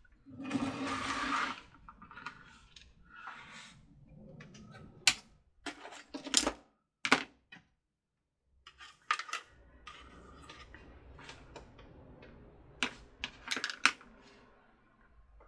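Scattered sharp clicks and light clatter of small tools and parts being handled, with a louder rustle in the first second and a half and a cluster of clicks near the end.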